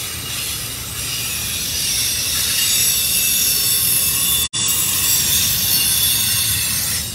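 Freight train's autorack cars rolling past close by: steel wheels on rail with a steady rumble and a high-pitched wheel squeal. The sound drops out for an instant about four and a half seconds in.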